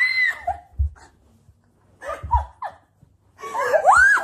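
A woman squealing and laughing as her feet are tickled through fluffy socks: a high squeal at the start, a few short gasping laughs in the middle, and another rising squeal near the end, with a few low thumps in between.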